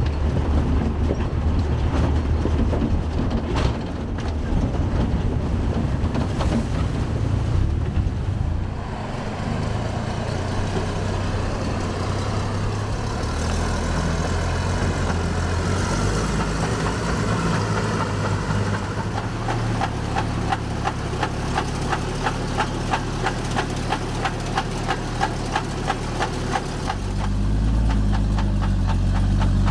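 Old Soviet ZIL truck's engine running under way. In the latter part a fast, even ticking comes in at about three a second.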